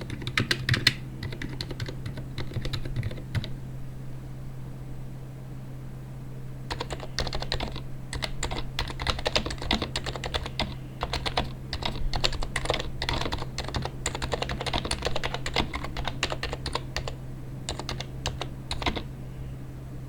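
Computer keyboard being typed on in quick runs of keystrokes, with a pause of about three seconds after the first few seconds; the typing stops about a second before the end. A steady low hum runs underneath.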